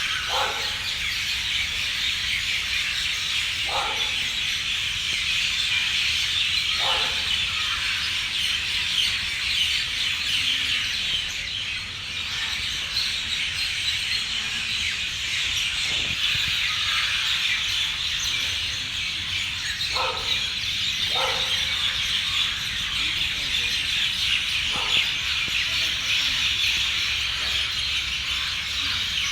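Birds calling outdoors: short downward-sliding calls every few seconds, heard over a dense, steady high-pitched chorus.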